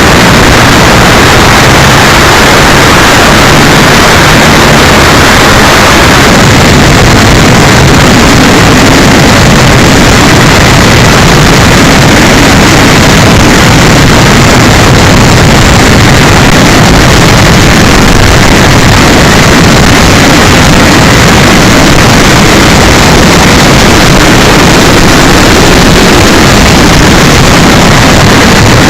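Loud, distorted wind rush and motor-and-propeller noise from an electric RC Cessna 182 model, picked up by a small keychain camera's microphone. The sound shifts slightly about six seconds in.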